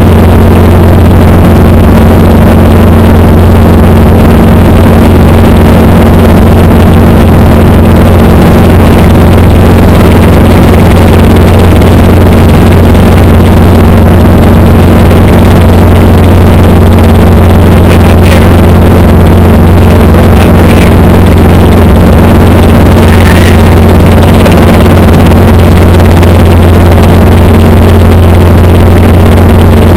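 Steady drone of a small helicopter's engine and rotor heard from inside the cockpit in cruising flight, very loud and unchanging.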